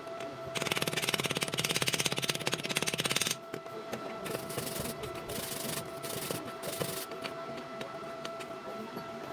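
Stick-welding arc crackling: a dense, loud crackle from about half a second in to about three seconds, then a softer, sputtering crackle with scattered clicks. A steady high whine runs underneath.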